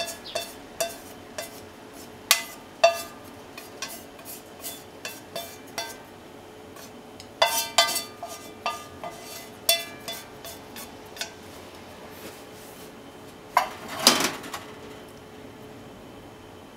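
Wooden cooking chopsticks and a frying pan clinking against a ceramic bowl as stir-fried pork and bean sprouts are scraped out of the pan. Sharp, briefly ringing knocks come about two a second at first, then scattered, with a louder, longer clatter near the end. A faint steady hum runs underneath.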